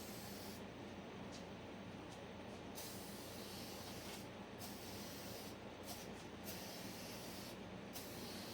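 Aerosol spray-paint can spraying in passes: a faint hiss that stops and starts again several times with short pauses between.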